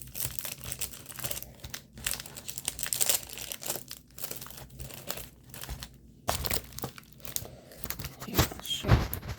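Plastic packaging crinkling and rustling as it is handled, in irregular crackles, with louder rustles about six seconds in and near the end.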